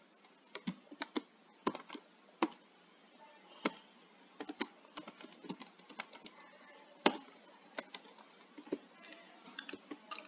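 Computer keyboard typing: irregular keystrokes with short pauses between them, a few louder than the rest.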